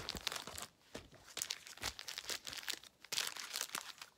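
Foil Pokémon booster packs crinkling and rustling as they are shuffled by hand, in three spells with short pauses between.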